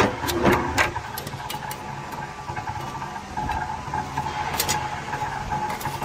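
Punching press running steadily with a constant hum, while a steel plate is slid over and set on the punching die, giving several sharp metal clicks in the first second and another about two-thirds of the way through.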